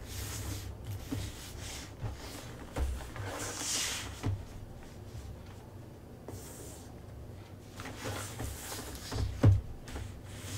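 Soft rustling and handling noise with a few light knocks, the loudest about nine and a half seconds in, over a low steady hum.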